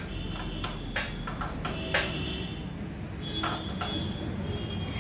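A handful of sharp metallic clinks, each with a short ring, from a spanner working the rear chain adjusters and axle of a motorcycle during a chain adjustment.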